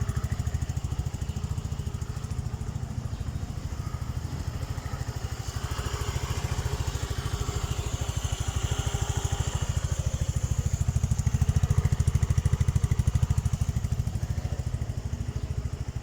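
Royal Alloy GP180 scooter engine running at idle with a fast, even exhaust pulse, getting a little louder around the middle and easing off near the end.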